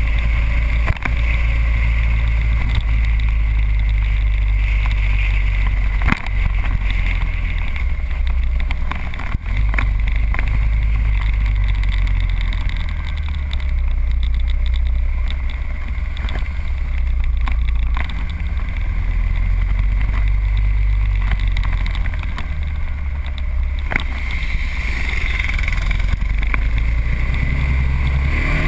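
Riding noise of a motorcycle at cruising speed, recorded by a camera on the moving bike: a steady, loud rumble of wind on the microphone mixed with the engine running, with a few brief clicks.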